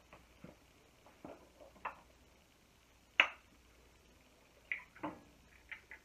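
Eggs and a fork knocking against a stainless steel mixing bowl as the eggs go in and are stirred: scattered light clicks, one sharp knock about three seconds in, and a quick run of clicks near the end.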